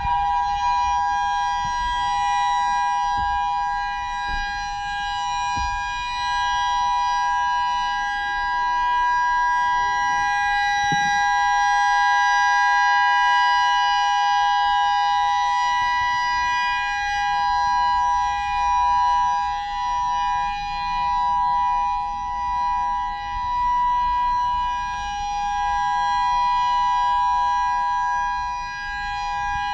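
Federal Signal EOWS 612 electronic outdoor warning siren sounding a steady two-note tone during a test. It swells and fades as the rotating speaker array turns toward and away.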